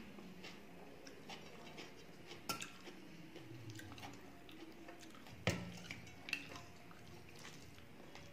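Eating sounds: faint chewing and rice being mixed by hand on a steel plate, with a few sharp clinks of a spoon against a steel bowl, the loudest about five and a half seconds in.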